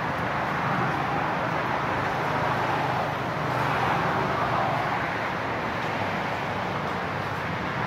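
Steady road traffic noise from the busy street below: a continuous rush of passing cars with a low engine hum.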